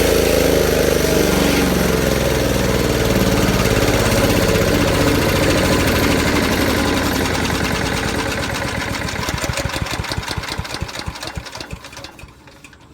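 The SuperHandy mini wood chipper's 7HP gas engine running steadily, then shut off about two thirds of the way in. Its firing strokes slow and fade as it winds down to a stop near the end.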